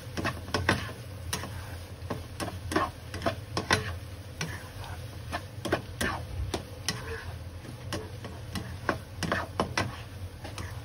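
Spatula scraping and knocking against a nonstick wok while stir-frying and mixing, making irregular clicks and scrapes about one or two a second over a steady low hum.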